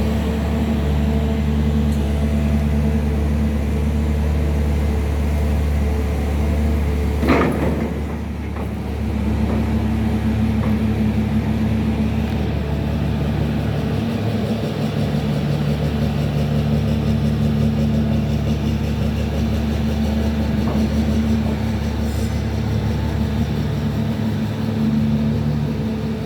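Caterpillar 336 hydraulic excavator's diesel engine running steadily, with a single sharp knock or clank about seven seconds in.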